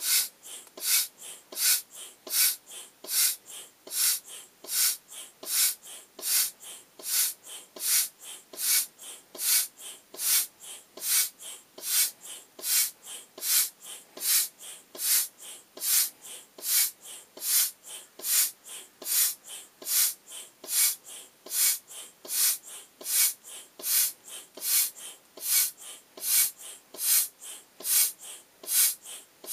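Foot-operated air pump inflating a vinyl beach ball through a hose: a steady rhythm of hissing puffs of air, a loud one with each stroke about every 0.8 s and a softer one between.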